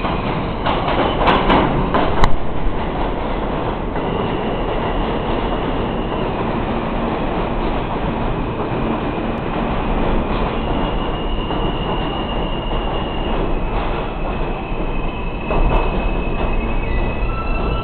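New York City subway N train pulling into an underground station and rolling past the platform: a steady loud rumble of wheels on rails, with sharp knocks in the first two seconds and high thin squeals from the wheels from about four seconds on as it slows.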